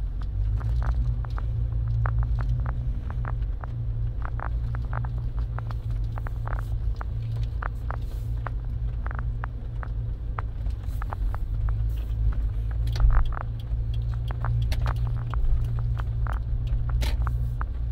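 Fourth-generation Subaru Forester on the move: a steady low road and engine rumble, with scattered light clicks and ticks at irregular intervals.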